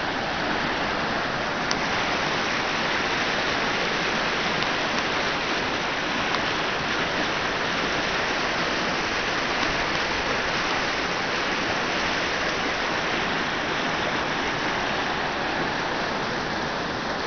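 Creek water rushing steadily over rocks through a stretch of whitewater rapids.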